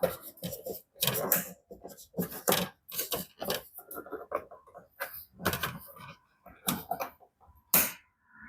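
Irregular short plastic clicks and knocks as a license plate light lens is worked and pressed into its housing at an awkward angle.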